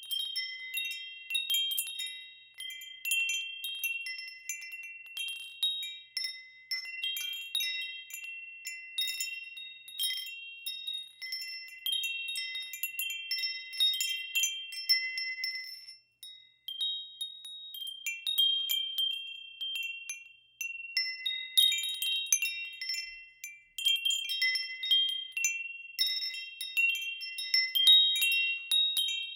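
Wind chimes ringing: several high, clear tones struck in irregular clusters, each ringing on, with a short lull about halfway through.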